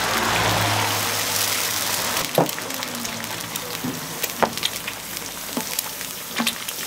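Eggs sizzling on a hot flat griddle, the hiss swelling as a freshly cracked egg hits the metal, then a block of butter sizzling as it is rubbed across the surface. A few sharp clicks come in between.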